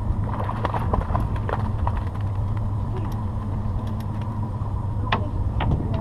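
Steady low hum aboard a fishing boat, with irregular light clicks and knocks and two sharper clicks about five seconds in.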